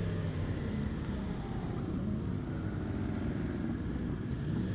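Motorcycle engines running steadily at low speed, a low even engine hum under road and wind noise.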